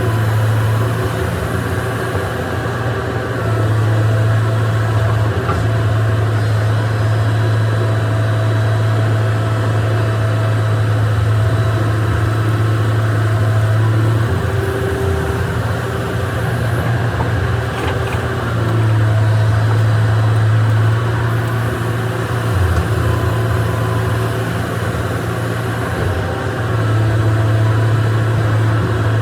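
Excavator's diesel engine running steadily with a low hum that swells and eases a few times.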